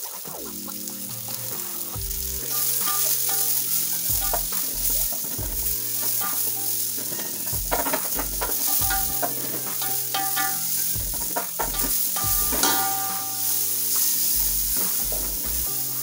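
Sliced red onions sizzling as they fry in hot oil in an aluminium sufuria. The sizzle builds over the first few seconds.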